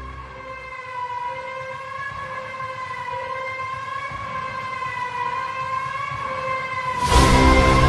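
A sustained siren-like wail whose pitch wavers gently and which slowly grows louder. About seven seconds in, a sudden loud hit cuts in, followed by heavy pulsing music.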